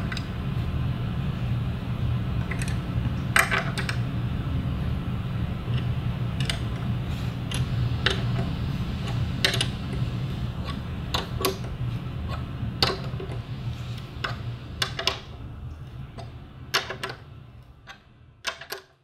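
Scattered light clicks and taps of steel hex jam nuts and a wood hanger screw being turned by hand into a pilot hole in plywood, over a steady low hum. Everything fades out near the end.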